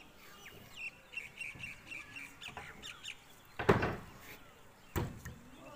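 A bird calls in quick, repeated short notes over the first few seconds. Then come two loud knocks about a second apart, the first with a short clatter: wooden shuttering planks being lifted and knocked together.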